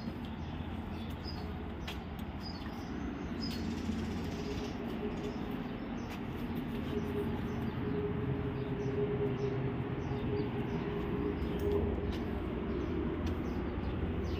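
Steady low rumble and hum of outdoor background noise, with a few faint high bird chirps in the first few seconds.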